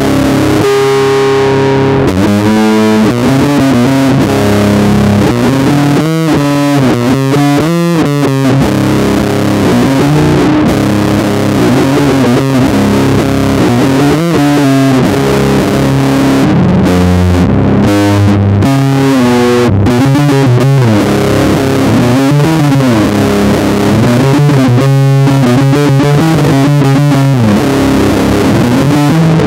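Four-string electric bass played through distortion, running a fast metal riff of quickly changing notes.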